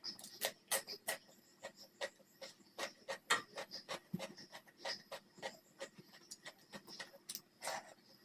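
Close-miked eating sounds: irregular wet clicks and crackles of chewing and mouth noises, several a second.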